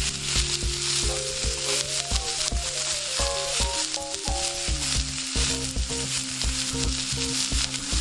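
Beef steak sizzling steadily in a cast-iron skillet, with background music (a melody over a steady low beat) mixed in.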